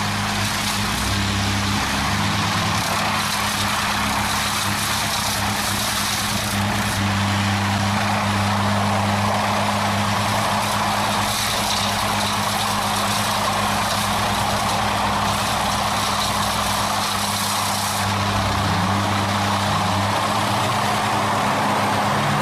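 Heavy machine's engine running steadily under a broad mechanical noise, its pitch shifting slightly late on.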